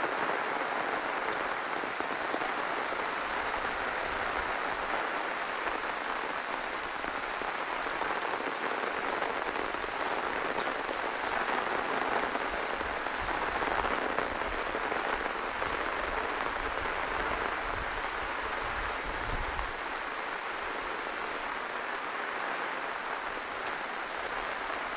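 Monsoon rain falling steadily: an even, unbroken hiss of a downpour.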